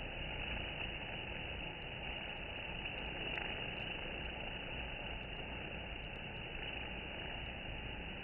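Steady drone of many honeybees at a wooden hive entrance, with a few faint high ticks.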